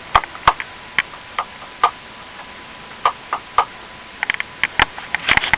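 Toggle switches on a homemade switch panel being flipped back and forth, an irregular series of sharp clicks that come faster near the end. The fuse is pulled, so the switches click but nothing powers up.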